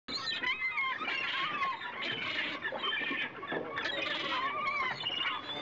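A flock of gulls calling, many wavering cries overlapping without a break.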